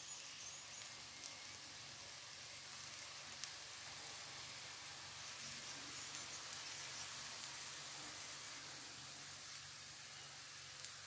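Faint, steady crackling sizzle with scattered small pops from freshly cooked stuffed okra in a non-stick pan.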